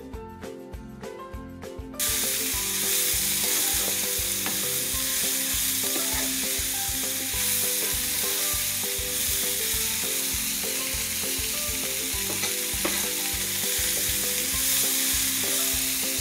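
Background music alone at first, then about two seconds in a loud sizzle starts suddenly: chicken and sliced vegetables stir-frying in a hot pan, tossed with a wooden spatula, with the music still faintly underneath.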